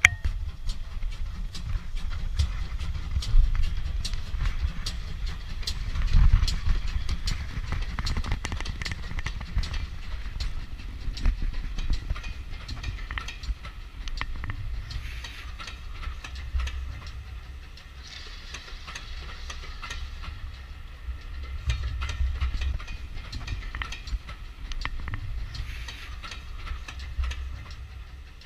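GWR 2800-class 2-8-0 goods steam locomotive 2857 passing slowly with a train of coaches: a low rumble with a steady run of clicks and knocks from the wheels and motion.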